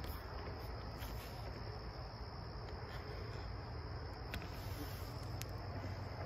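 Crickets trilling steadily in a high, even pitch, over a steady low rumble, with a couple of faint clicks.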